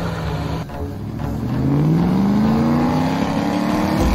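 A 4x4's engine pulling through snow. It holds steady at first, then from about a second in the revs climb smoothly for a couple of seconds and level off.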